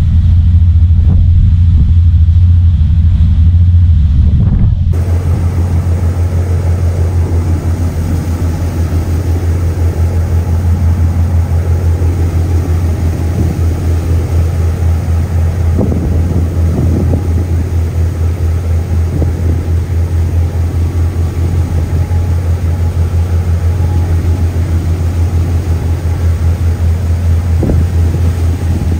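Steady low drone of a ferry's engines running at cruising speed, heard on deck with the wake rushing behind. About five seconds in the sound changes abruptly to another vessel's engine drone mixed with wind buffeting the microphone and rushing water.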